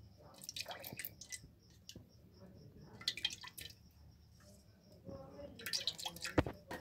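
Cooking oil poured into a steel kadhai, dribbling and splashing in several short spurts, with a sharp knock near the end.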